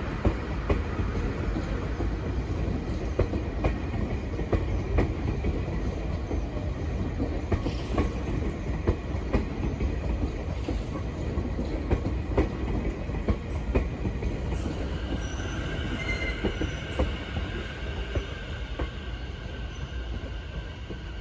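Electric commuter train running on the rails: a steady low rumble with frequent sharp clacks of wheels over rail joints. About two-thirds of the way in, steady high squealing tones join in, and the sound eases off slightly near the end.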